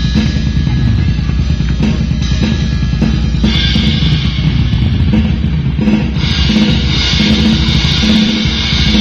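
Loud drum-kit music with a steady driving beat of bass drum and snare, the cymbals growing brighter about halfway through.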